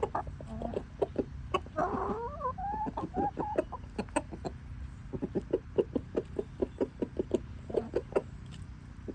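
Rooster eating bread and making an odd, wavering call that glides up and down in pitch, from about two seconds in to three and a half seconds. Around it are many short, rapid clucks.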